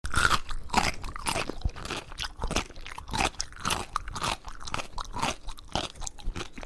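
A cat nosing and mouthing at a white knit sneaker, with its face pressed into the shoe. It makes a quick, uneven run of crunching, scraping noises, several a second.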